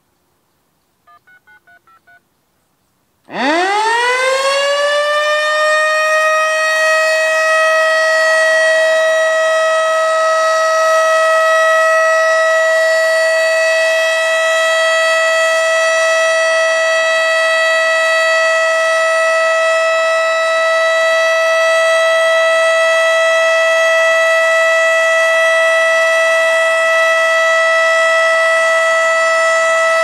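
American Signal OM-120 omnidirectional mechanical siren winding up fast about three seconds in and holding a steady alert tone with many overtones. It is higher-pitched than usual, which the uploader puts down to a bird's nest blocking its intake. Just before it starts, a short run of touch-tone beeps.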